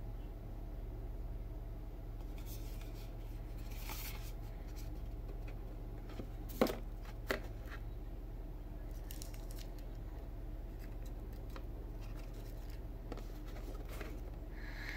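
Handling of a cardboard flashlight box and its small packaged accessories: scattered light clicks and rustles, a short rustle about four seconds in and two sharp knocks a little over six and seven seconds in, over a steady low hum.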